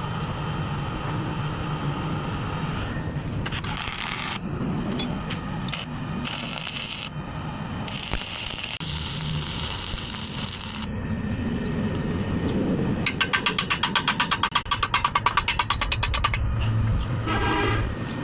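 Electric arc welding: the arc crackles and hisses in several bursts of one to three seconds each. Later, about three seconds of rapid, evenly pulsing sound follow.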